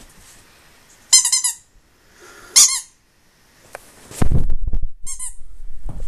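Squeaky cupcake dog toy squeezed by hand, giving a quick run of squeaks, then a single squeak, then a short one near the end. Dull low thumps and rumbling come between the last two.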